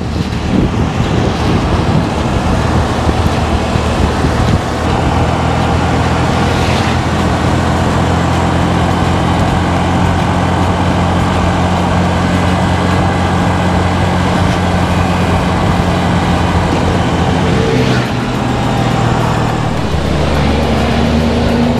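A small 100 cc Honda scooter engine runs at a steady cruise under road and wind rush. Its note changes about eighteen seconds in.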